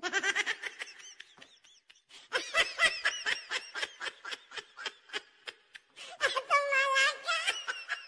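High-pitched laughter: a rapid string of short giggles, about five a second, with a longer drawn-out laugh near the end.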